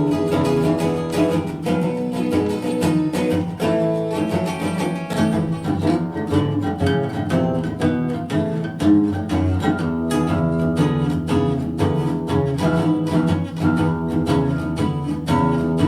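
Instrumental music led by plucked guitar, with a steady run of quick notes.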